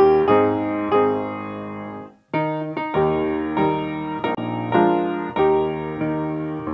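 Background piano music: notes and chords struck about every half second, each fading away, with a short break a little after two seconds in.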